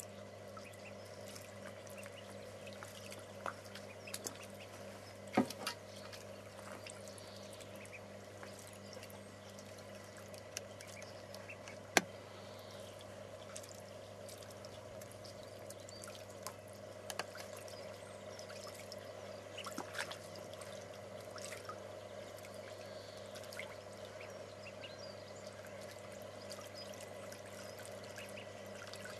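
Ducklings splashing and dabbling in a shallow tray of water, a steady light patter of splashes, trickles and drips with a few sharper clicks and splashes scattered through.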